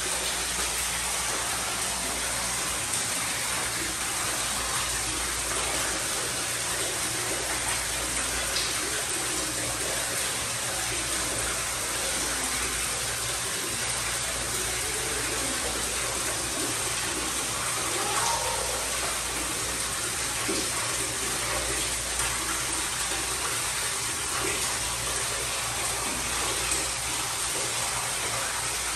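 Running water rushing steadily, an even hiss that holds the same level throughout.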